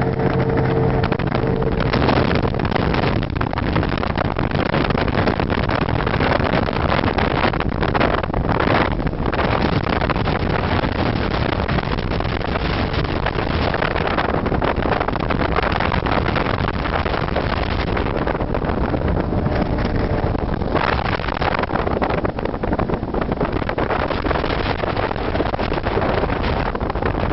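Motorboat running fast on its big outboard motor: a loud, steady rush of engine, water and wind on the microphone, with a steady engine hum showing through only in the first second or so.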